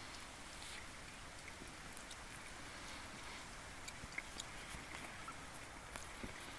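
A young child chewing a hot dog, with faint small mouth clicks scattered over a steady low hiss.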